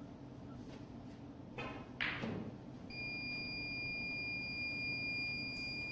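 A low steady hum, with a sharp single knock about two seconds in. From about three seconds a steady high-pitched electronic tone comes in and holds.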